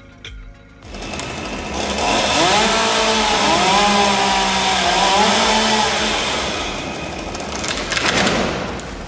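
Chainsaw running at high speed, coming in about a second in; its engine note dips and recovers as the chain bites into the wood under load.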